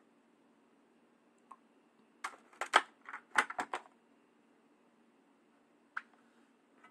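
Plastic body shell of a Tamiya F103 RC car clicking and clattering against the chassis as it is set in place: a quick run of sharp clicks about two seconds in, lasting under two seconds, then a single click near the end.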